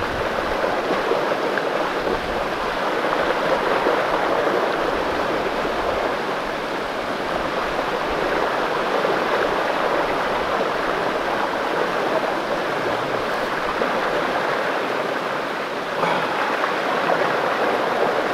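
A creek's water running steadily: a continuous, even rush of flowing water.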